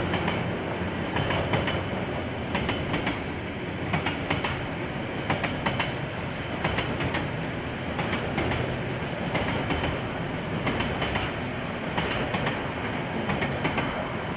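Freight train of container flat wagons rolling past: a steady rumble of steel wheels on the rails, with repeated clicks, often in pairs, as the wheels cross rail joints.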